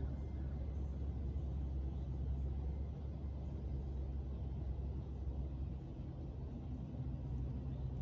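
Steady low outdoor background rumble, with a few faint high chirps in the first few seconds.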